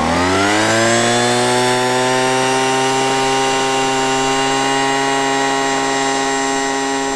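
Gas leaf blower engine and fan, mounted as the motor of an RC airplane, revving up to full throttle in the first second, then holding a steady high-pitched drone on the takeoff roll. It fades slightly near the end as the plane pulls away.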